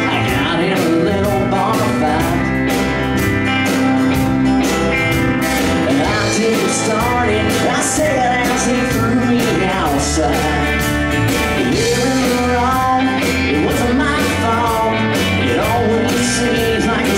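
Live country band playing a song at full volume, with electric and acoustic guitars, pedal steel guitar, keyboard and drums over a steady beat, and sliding, bending melodic lines.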